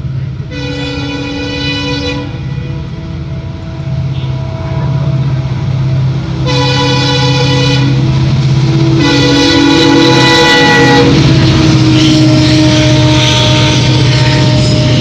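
WDG4 diesel locomotive's horn sounding three blasts, the third the longest, over the steady low hum of its diesel engine. After the last blast the train draws close and a loud rush of passing locomotive and wagon noise takes over.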